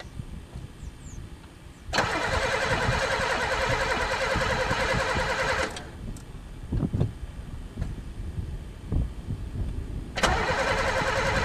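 Pontiac engine cranking on the starter in two bursts of about four seconds each, turning over evenly without catching, though gas has been poured into the carburettor; the owner fears it has no spark. A few dull knocks fall between the bursts.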